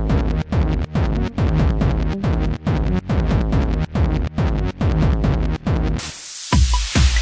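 Minimal electronic track: a rapid, stuttering pattern of short beeps and hits over a bass line. About six seconds in, the pattern gives way to a bright noise swell, and a heavy kick-drum beat comes in.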